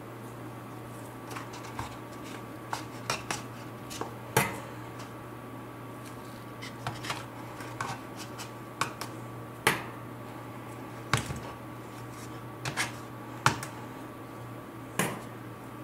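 Metal tongs clicking and tapping while ice cream rolls are lifted and set into a paper cup: a dozen or so sharp, irregular clicks over a steady low hum.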